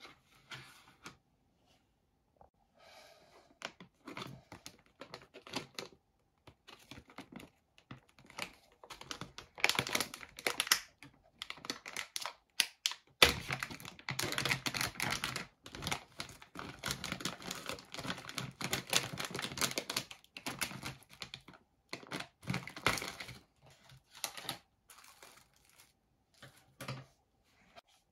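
Irregular clicks, taps and crinkling rustles, sparse at first, busiest through the middle stretch, then thinning out again.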